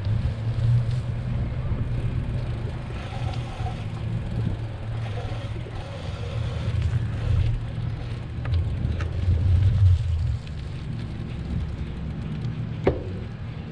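Steady low rumble of wind buffeting the microphone and tyres rolling on pavement during a bicycle ride, with a single sharp knock near the end.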